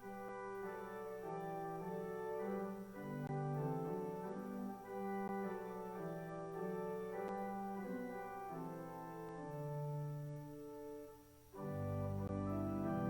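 Organ playing slow, sustained chords. About eleven and a half seconds in, after a brief dip, it comes back louder and fuller with deep bass notes.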